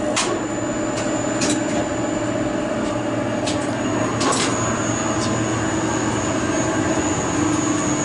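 Old Westinghouse lift machinery running in its motor room: a steady electrical hum and drone with a high whine, broken by a few sharp clicks.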